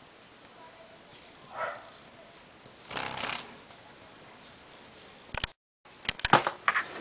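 White-striped longhorn beetle (Batocera lineolata) chirping: a short raspy squeak about three seconds in, made by rubbing its thorax segments together. Near the end come louder sharp clicks and scrapes as the beetle takes off.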